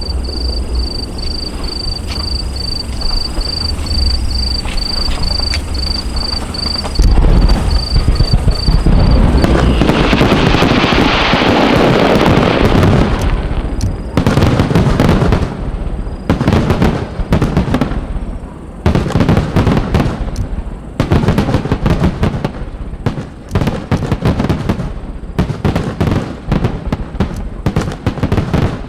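Aerial fireworks exploding: a low rumble at first, then a loud, dense mass of crackling bursts from about seven seconds in, giving way to a rapid series of separate sharp bangs.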